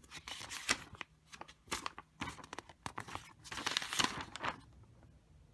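Paper instruction manual rustling and crinkling as it is handled and flipped over, in a string of short crackly rustles, busiest about four seconds in.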